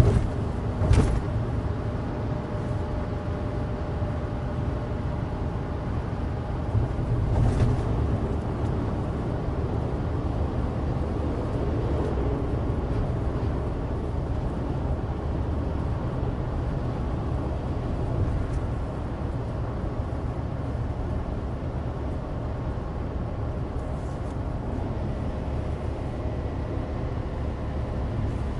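Inside the cabin of a moving Suzuki Alto Turbo RS: its 658 cc turbocharged three-cylinder engine and studless winter tyres on a dry road make a steady drone. There are two short thumps, about a second in and again at about seven and a half seconds.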